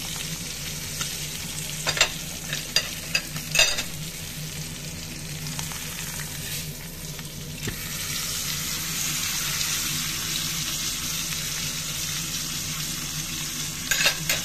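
Bone-in Angus beef steak sizzling as it fries in oil in a skillet. Sharp clicks of a utensil against the pan come about two to four seconds in and again near the end. The sizzle grows louder after the steak is turned over, about halfway through.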